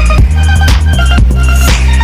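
Background electronic music with heavy bass and a steady beat.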